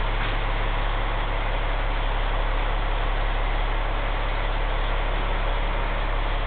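Big truck's engine idling, heard inside the cab as a steady low drone under an even hiss.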